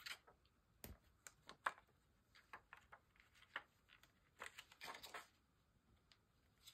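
Faint scattered small ticks and paper rustles as self-adhesive enamel dots are peeled from their backing sheet and pressed onto a paper card by hand.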